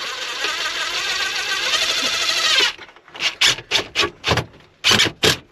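Cordless drill driving a 1¼-inch self-tapping screw into the truck's dash panel: one long run of nearly three seconds, then a string of short trigger bursts as the screw is snugged down.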